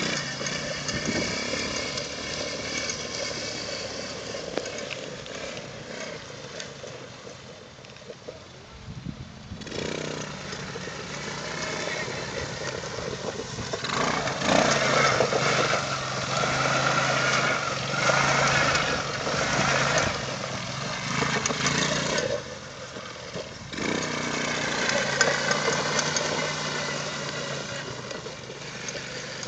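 Small 90cc ATV engine running and being throttled up and down, its pitch rising and falling, with a louder stretch of revving in the middle and brief drops where the throttle is let off.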